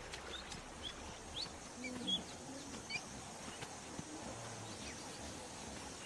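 Quiet riverside ambience with scattered short, high bird chirps and a couple of faint low animal calls, one about two seconds in and another about four and a half seconds in.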